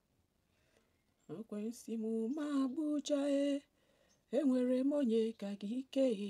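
A woman singing a short tune to herself, unaccompanied, in two phrases of held notes.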